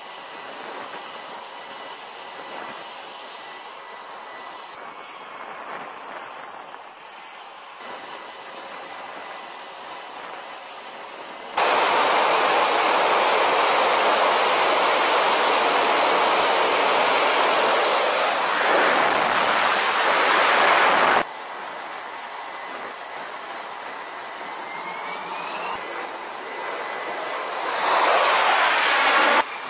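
Carrier-deck F/A-18 jet engines: a steady turbine whine with high whistling tones, then a sudden jump to full launch power about a third of the way in, loud for about ten seconds before cutting off abruptly. A rising whine of an engine spooling up follows, and another loud full-power stretch comes near the end.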